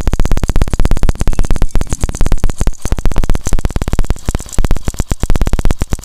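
Hero Passion Pro single-cylinder four-stroke motorcycle engine running, heard through a microphone pressed against the cylinder and cam-chain area. It makes a loud, rapid metallic clatter, about ten clicks a second. The noise sounds like timing-chain noise and persists even with a complete new timing chain kit and a rebuilt engine. It goes away when a particular 10 mm bolt is loosened.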